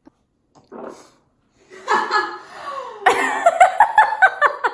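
A woman laughing hard, building from about two seconds in into a string of quick, evenly spaced laughs.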